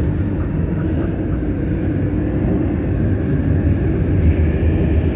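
Madrid Metro train heard from inside the carriage as it pulls out of the station into the tunnel: a steady low rumble of wheels and running gear, growing a little louder as it picks up speed.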